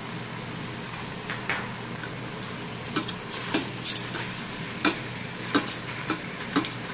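Chicken and fried onions sizzling in hot oil in a stainless steel Instant Pot inner pot, while a spatula stirs them, clicking and scraping against the pot. The knocks come more often from about halfway through.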